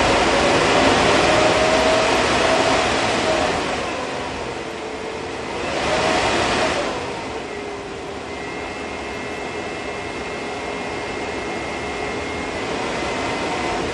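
Large 3D-printed PETG electric ducted fan running at speed on 48 volts: a loud rushing whoosh with a whining blade tone that eases off, surges up again about six seconds in, then holds steady, with a higher whine joining for the last few seconds. The builder puts a slight imbalance in the run down to the motor mount.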